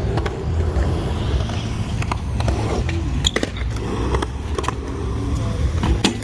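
Wheels rolling over a concrete skatepark surface with a steady low rumble, with several sharp clacks and knocks scattered through it.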